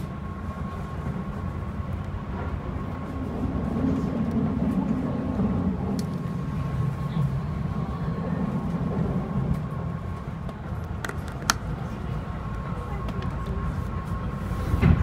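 Cabin noise inside a running Keihan limited express electric train: a steady low rumble that swells for a few seconds in the middle, with a faint steady tone above it. A couple of sharp clicks come just past the middle.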